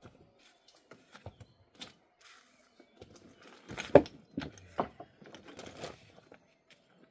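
Loose building stones knocking and scraping against each other as they are sorted and lifted by hand from a rubble heap. There are irregular clacks throughout, with one sharp knock about four seconds in, the loudest.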